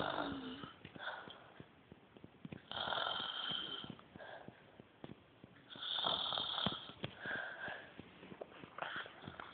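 A woman snoring loud in her sleep: long snores with a high whistling tone, about three seconds apart, with shorter, fainter breaths between them.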